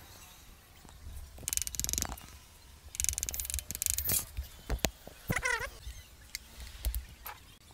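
Socket wrench clicking rapidly in two short runs as the magneto flywheel nut is tightened on a Bajaj Pulsar 150 DTSI crankshaft, during refitting of the flywheel. A few sharp metal knocks and a brief squeak that rises and falls follow as the aluminium side cover is handled.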